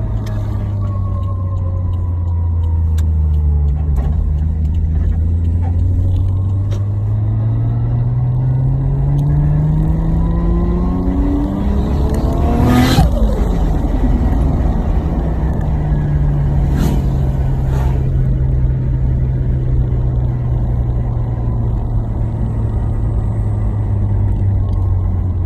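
Turbocharged 1JZ-GTE straight-six of a Toyota JZX100 pulling hard, its note rising steadily for about thirteen seconds. At lift-off a sharp burst of turbo flutter (compressor surge) comes as the revs fall. Two shorter bursts follow a few seconds later, then the engine settles to a steady note.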